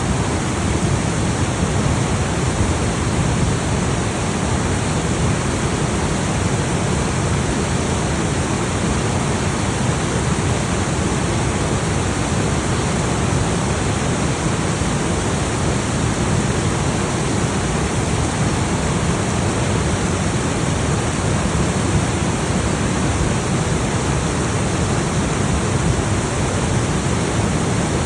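The Salto del Laja waterfall: falling water rushing steadily, a dense, unbroken noise with most of its weight in the low range.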